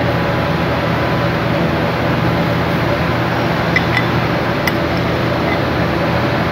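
Steady low machine hum with hiss. A few light metallic clicks come about four to five seconds in as the fan motor's rotor and new bearing are seated in the stator housing.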